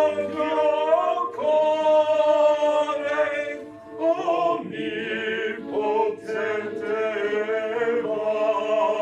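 Operatic singing by several voices in harmony, with long held notes and short breaks between phrases.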